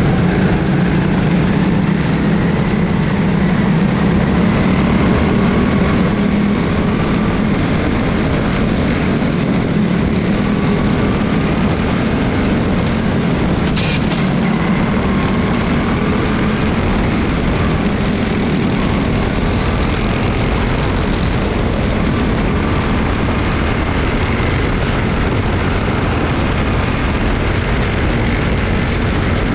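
Several small Honda racing engines running together at speed through a race, a continuous drone with pitches that waver slightly as the cars circle the track.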